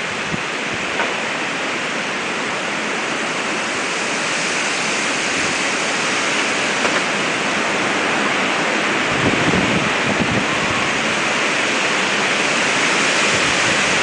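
Strong gusting storm wind rushing through trees: a steady loud hiss that slowly grows louder, with wind buffeting the microphone about nine to ten seconds in.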